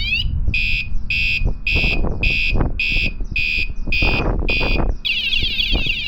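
Cheap under-seat motorcycle alarm siren going off: a rising sweep ends just as it starts, then about eight loud beeps come at roughly two a second, and about five seconds in it switches to a fast warbling tone. Wind rumbles on the microphone underneath.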